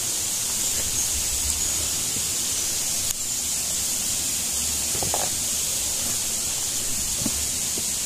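Steady rushing of falling water from a waterfall, an even hiss with no gusts. A few faint knocks come through about five and seven seconds in.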